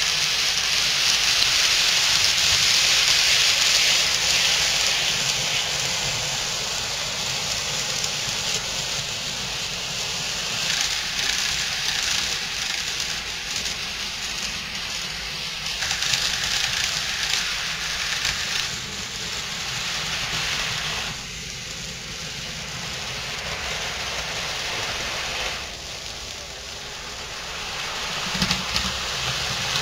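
HO and N scale model trains running on the layout's track: a steady rushing hiss of small metal wheels on rail and small electric motors, with a low hum under it. It drops in level a few times, and a few short clicks come near the end.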